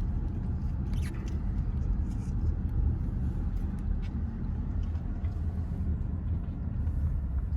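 Steady low rumble of a car's interior, with a few light clicks over it.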